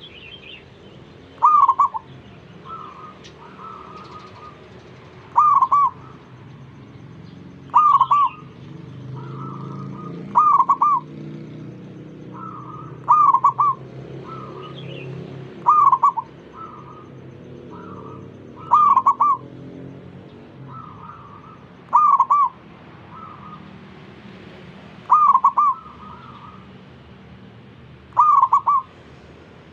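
Zebra dove (perkutut) cooing over and over, one short loud phrase about every two and a half to three seconds, with fainter calls in between.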